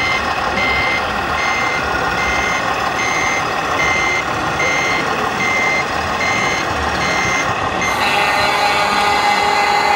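Reversing warning beeper, most likely from an RC model truck's sound module, giving a high single-tone beep that repeats evenly about every three-quarters of a second over steady background noise. About eight seconds in the beeping stops and a steadier tone takes over.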